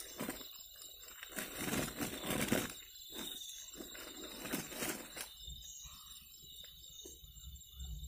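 A sack rustling in two loud spells, starting about a second and a half in and again around four seconds in, as a netted quail is stuffed into it. A steady high insect trill runs underneath.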